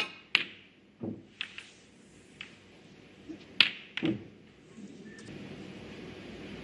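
Snooker cue and balls clicking: about half a dozen sharp clicks of the cue tip on the cue ball and ball striking ball, the loudest at the start and about three and a half seconds in. Duller knocks come about a second in and again near four seconds, over a soft steady hush.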